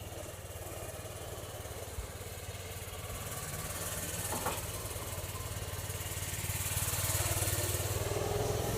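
A child's snowmobile engine running steadily, growing gradually louder over the last few seconds.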